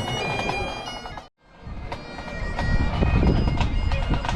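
Bagpipes playing: steady held drone tones under the tune. The sound cuts out completely for a moment about a second in, then the pipes carry on with a low rumble of wind on the microphone.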